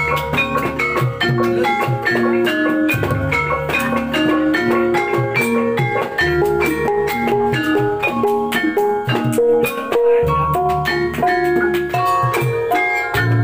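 Javanese gamelan playing: bonang kettle gongs struck in quick runs of pitched notes over hand-played kendang drum, with a deep hanging-gong tone struck again about every three to four seconds.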